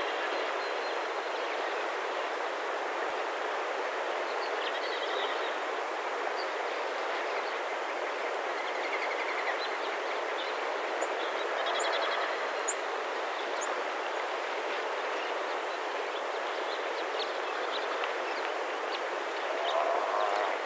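Steady rushing noise at an even level, with a few short, faint high chirps over it.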